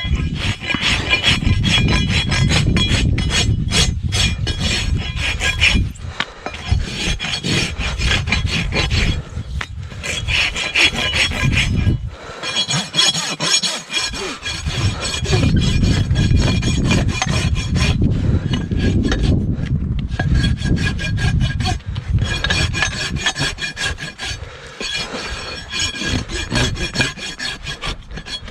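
Farrier's hoof rasp filing a horse's hoof wall in rapid, repeated back-and-forth strokes.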